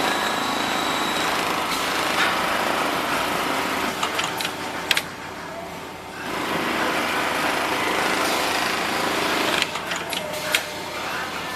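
Mitsubishi PLK-G6030 programmable industrial pattern sewing machine running, stitching steadily. It drops quieter for about a second around five seconds in, with a few sharp clicks just before the dip and again around ten seconds in.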